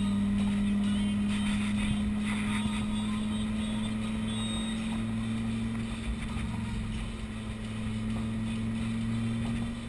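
Lamborghini engine running steadily at low, unchanging revs while the car cruises slowly, heard from the driver's seat with the roof open.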